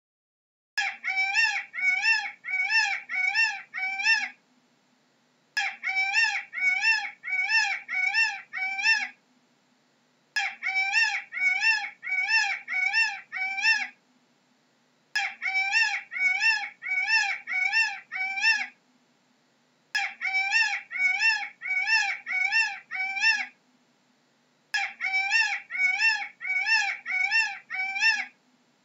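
Peacock (Indian peafowl) calling. Bursts of about six loud, rising-and-falling calls come in quick succession, roughly two a second. The same burst comes back about every five seconds, six times, with silence between.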